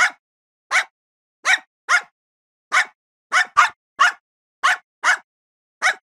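A dog barking: about eleven short, sharp barks, roughly two a second, some coming in quick pairs.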